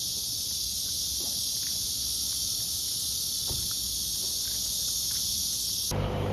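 A dense, steady, high-pitched chorus of insects that starts and stops abruptly.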